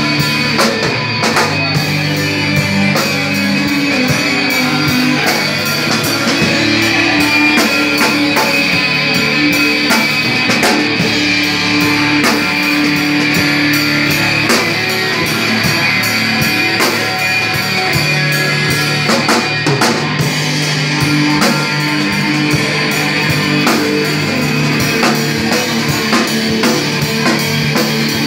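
Live rock band playing: electric guitar over a drum kit with cymbals, loud and steady.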